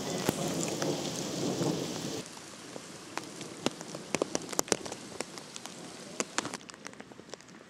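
Thunder rumbling low under heavy rain, cutting off abruptly about two seconds in. After that, steady rain with many sharp, close drops ticking near the microphone.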